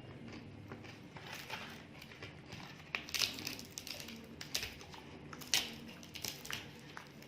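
Close-miked eating sounds: irregular crackly clicks and crunches of chewing and mouth noises, with the sharpest ones about three seconds and five and a half seconds in.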